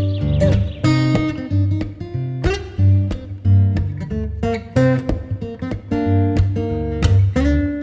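Background music: acoustic guitar played with plucked and strummed notes over a steady bass.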